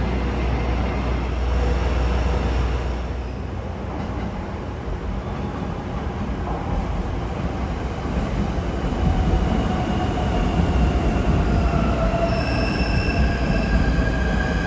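A train running on the rails with a low rumble. About nine seconds in, a high whine sets in and slowly drops in pitch, and higher squealing tones join it near the end.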